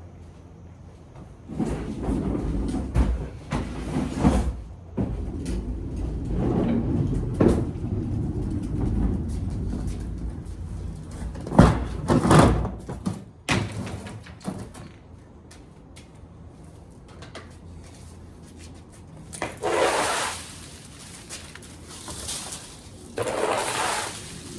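Irregular handling noises: rustling and scraping with scattered knocks for about twelve seconds, then two short hissing bursts near the end.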